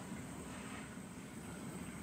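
Steady low rumble with a faint hiss from a pot of soup simmering on a gas stove.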